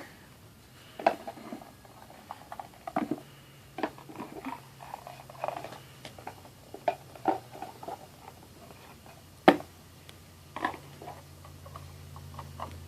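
Small plastic toys and building blocks being handled and set down on a hard surface: irregular light clicks and knocks, a few of them sharper and louder.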